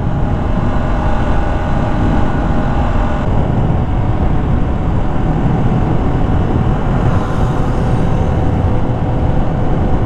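Motorcycle cruising steadily at about 60 km/h: heavy wind rumble on the rider's microphone over a faint, even engine drone.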